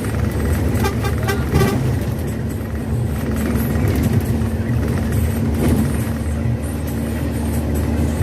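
Intercity bus on the move, heard from on board: steady engine hum and road noise, with the bus horn tooting.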